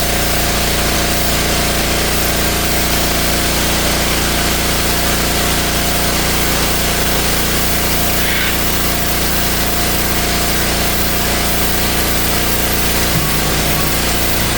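Pressure washer running steadily: an even motor hum under a loud spray hiss.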